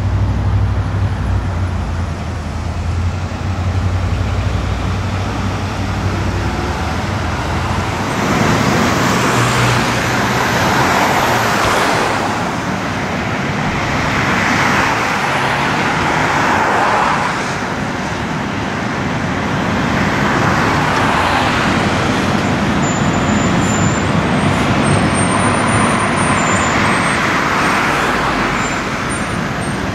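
Road traffic: vehicles passing one after another, each swelling and fading over a few seconds, after a heavy low engine rumble in the first several seconds.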